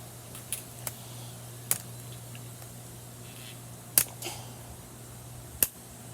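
A new, very tight 3x3 Rubik's-type cube being twisted by hand: a handful of sharp, irregular plastic clicks as its stiff layers snap round, the loudest about four seconds in and near the end.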